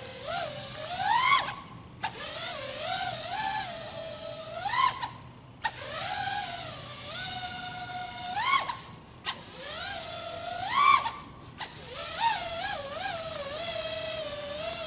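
Motors of an FPV racing quadcopter (iFlight XING 2207 1800kv on a TBS Source 1 frame) whining in flight, the pitch swinging up and down with the throttle. Four times the whine rises sharply and then cuts out for about half a second as the throttle is dropped for flips and rolls.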